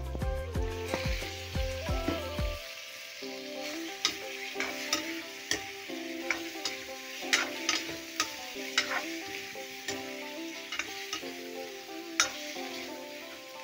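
Meat frying in oil and spice masala in a metal kadai, sizzling from about a second in. A steel spoon stirs it with sharp, irregular scrapes and clinks against the pan, over background music.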